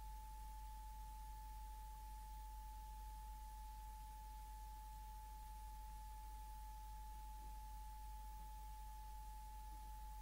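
A single steady high-pitched tone, unchanging like a test tone, over a faint low hum and hiss.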